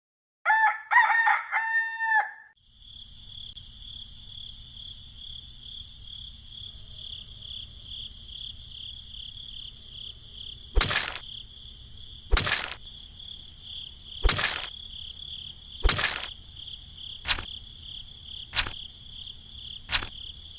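A rooster crows once, near the start. A steady high-pitched insect drone follows, and in the second half sharp knocks come about every one and a half seconds.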